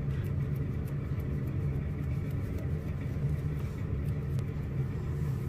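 A steady low hum runs under the scene, with no distinct knocks or clicks standing out.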